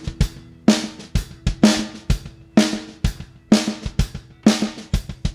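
Rock drum kit playing a steady beat, kick drum alternating with snare and cymbal hits about two times a second, with a low held note faintly underneath.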